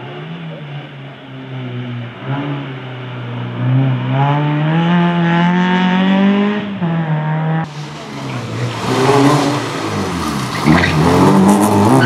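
Fiat Cinquecento rally car's engine at full throttle, its note climbing steadily with a brief dip at a gear change about seven seconds in. After an abrupt cut, another Cinquecento is heard revving up and down through a corner.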